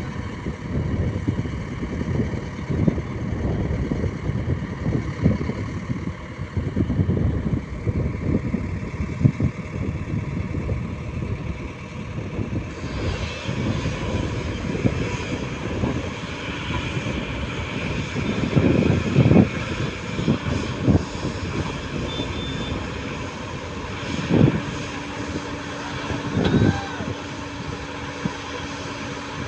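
Heavy diesel engine of an excavator or backhoe loader running under load, a steady rumble broken by irregular low thumps and knocks. A higher hiss joins about halfway through.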